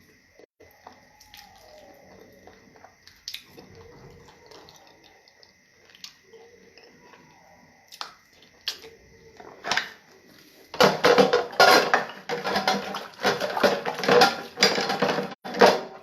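Water splashing, loud and uneven through the last five seconds and stopping abruptly, with scattered light clicks and knocks before it.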